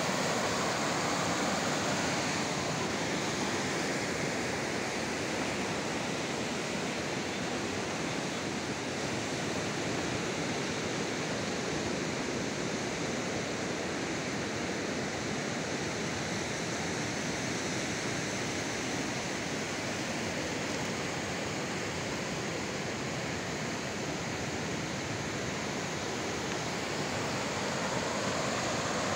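Fast mountain river rushing over boulder rapids, a steady, even wash of water noise.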